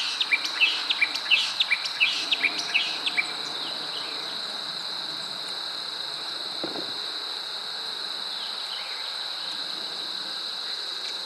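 Steady high-pitched trilling of crickets, with a rapid run of short, sharp high chirps over the first three seconds.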